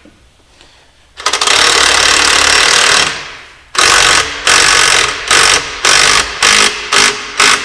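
Impact wrench run in one long burst that winds down on release, then pulsed in about eight short bursts in quick succession, drawing a part up to take up the tension on a V belt.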